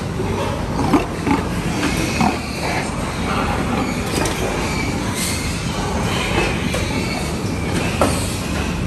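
Sow and piglets squealing and grunting in a pen, a steady noisy din with short sharp squeals about a second in, around two seconds, midway and near the end.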